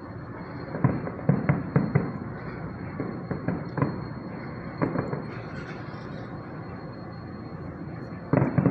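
Fireworks shells bursting: a quick run of bangs in the first two seconds, a few more around four and five seconds in, and another cluster near the end, over a steady background noise.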